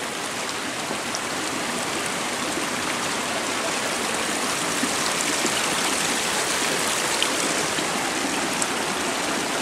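A creek rushing steadily, the sound of flowing water, with a few faint ticks.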